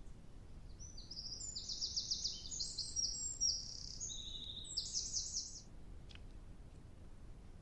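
A songbird singing one high, fast song of about four and a half seconds, made of quick trilled phrases, starting about a second in.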